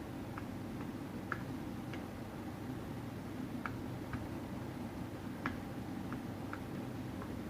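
Keystrokes on a DIY mechanical keyboard with Aliaz silent tactile switches in an aluminum case with PBT XDA keycaps: soft, irregularly spaced clicks, about one or two a second, over a steady low hum.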